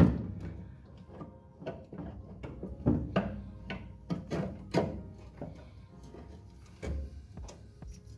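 Irregular metal knocks, clicks and light scraping as a clutch pedal is worked by hand into a steel MGB pedal box. A sharper knock comes at the very start, then scattered smaller clicks.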